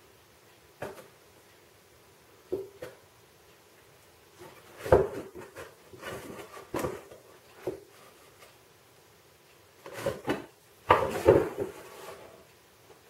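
A cat and a ferret bumping and shoving a cardboard box on a tiled floor: scattered knocks and scuffs, loudest in a cluster about five seconds in and again around ten to eleven seconds.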